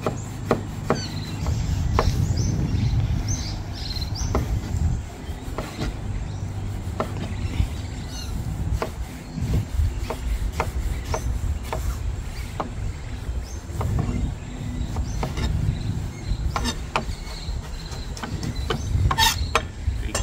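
Knife chopping a tomato on a plastic cutting board: the blade knocks against the board at an uneven pace, about one or two strikes a second.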